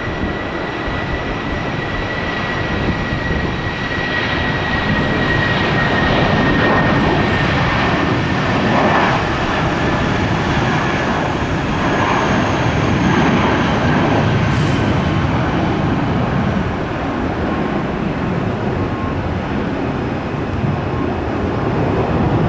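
jetBlue Airbus A320's twin jet engines at takeoff power through the takeoff roll, lift-off and climb-out: a steady loud rumble with a high fan whine that sinks slowly in pitch. The noise swells over the first several seconds.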